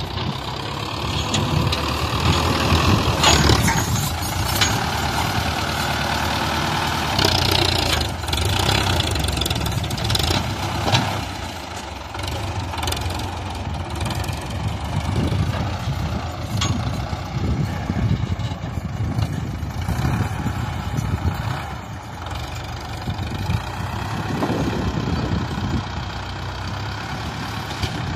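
Diesel tractor engines running: a Massey Ferguson 385 with a loaded trolley and a tractor front-end loader scooping soil and tipping it into the trolley. A few sharp knocks stand out over the steady engine rumble.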